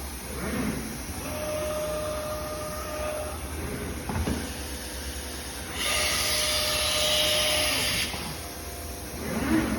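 Multicam CNC router's automatic tool changer unloading the spindle's tool: a steady motor whine, a single clunk about four seconds in, then a loud hiss of compressed air lasting about two seconds, with the whine again.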